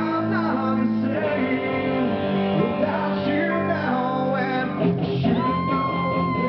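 Rock band playing live: electric guitar with a male lead singer, and a long held note coming in about five seconds in.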